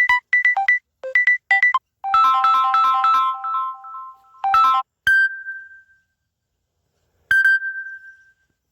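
Samsung Galaxy A50 stock ringtone and notification tones. A quick electronic melody of short plucked notes ends in a held chord, then two single chime-like dings sound about two seconds apart, each ringing out.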